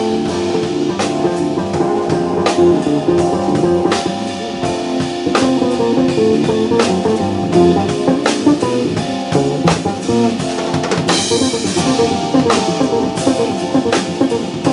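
Live jazz band playing: electric bass and keyboards over a drum kit, with drum strokes on a steady beat.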